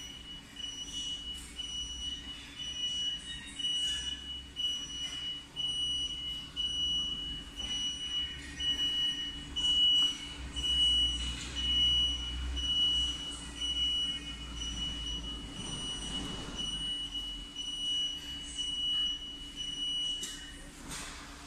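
Electronic buzzer sounding a high-pitched, rapidly pulsing beep over a steady low hum; the beeping cuts off near the end.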